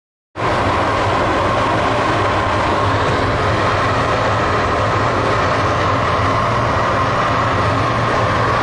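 Loud, steady machinery noise with a low hum, starting abruptly about a third of a second in.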